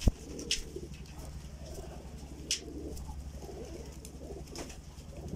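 Domestic pigeons cooing continuously over a steady low hum, with one sharp, loud slap right at the start as the pigeon held on the hand flaps its wings, and a couple of short high clicks later.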